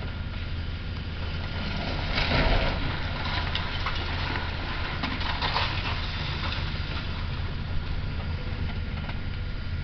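High-reach demolition excavator running steadily while its jaw attachment tears into a concrete press box. Concrete and debris crash down about two seconds in and again around five seconds, with scattered cracks and clatter.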